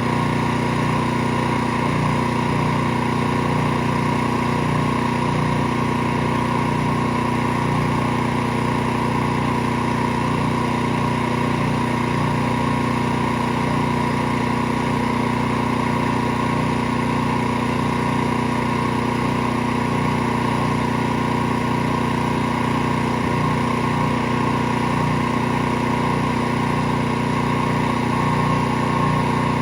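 Pressure washer running steadily, its motor holding a constant pitch throughout.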